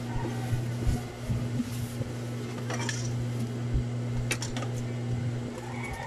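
Juki industrial sewing machine's motor humming steadily while the machine stands idle, with a few light metallic clicks and clinks about three and four and a half seconds in.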